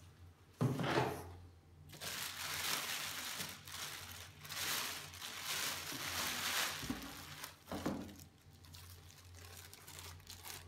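Thin plastic packaging bag crinkling and rustling as hands pull it around a boxed appliance and lift out a plastic-wrapped booklet. Two short thumps of handling, one about a second in and another near the end.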